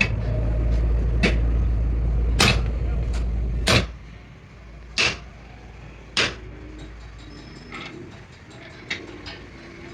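Hammer blows on metal, about one every 1.2 seconds, the later ones fainter. They fall over a low engine rumble that drops away about four seconds in.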